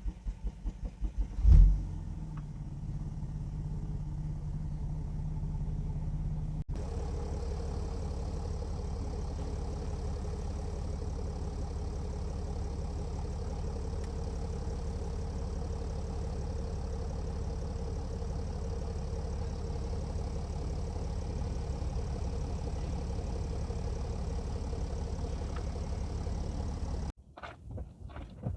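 Mercedes E320 CDI V6 turbodiesel cold-starting after a week unused. The starter cranks briefly and the engine catches with a loud flare about a second and a half in, then settles into a steady idle, rough on this cold start. The sound changes abruptly about a quarter of the way through, and the idle continues until it cuts off near the end.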